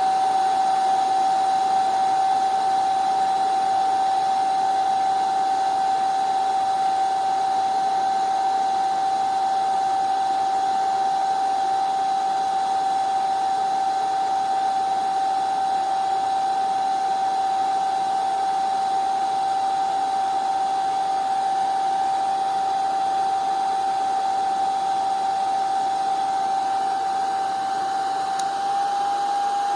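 Salon Series 1600 hair dryer running: a steady motor whine over rushing air, its pitch stepping up slightly near the end.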